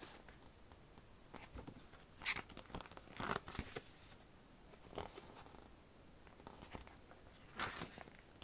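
Pages of an album photobook being turned by hand: a few short paper swishes and rustles, the loudest a little after two seconds, around three seconds in, and near the end.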